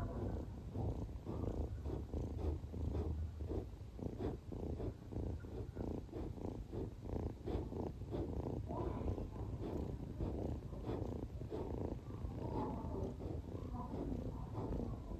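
A cat purring steadily, in quick even pulses.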